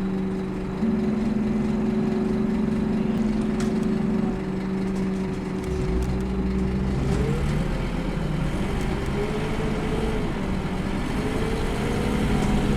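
Scania K230UB city bus heard from inside the cabin, its Scania DC9 five-cylinder diesel and ZF Ecomat automatic transmission running under way with a steady low rumble and a held whine. About seven seconds in, the whine starts rising and falling in pitch as the bus changes speed.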